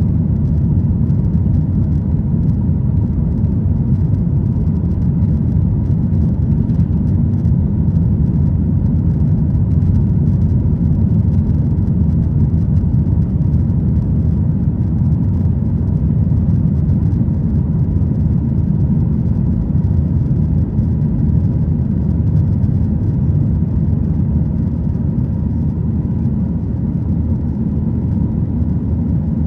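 Boeing 737-900ER cabin noise from a rear seat: a steady low roar of its CFM56 jet engines and airflow, with no marked change in level.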